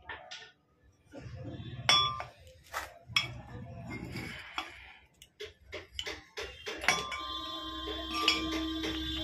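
Steel gearbox parts and tools clinking and knocking together, with several sharp metal strikes, some of which ring briefly. A steady hum starts about seven seconds in.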